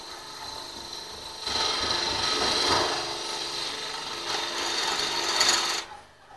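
Homemade wood lathe running while a turning chisel scrapes and cuts the spinning wood, the cutting getting louder about a second and a half in. The sound stops abruptly near the end.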